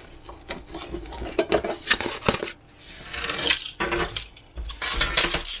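Tools and small parts handled on a wooden workbench: light clicks and knocks as things are picked up and set down, with a brief scraping rub about three seconds in.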